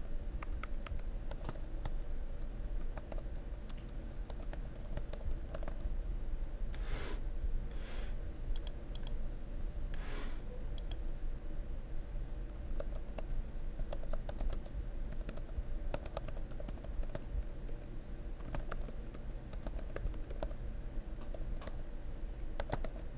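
Computer keyboard typing: quick, irregular key clicks throughout, over a low steady hum. Three short hissing sounds come about seven to ten seconds in.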